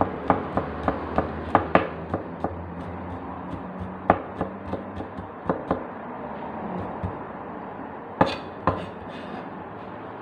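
Cleaver chopping garlic on a thick wooden chopping block: sharp knocks about three a second for the first couple of seconds, then lighter, more scattered taps, and two loud chops about eight seconds in.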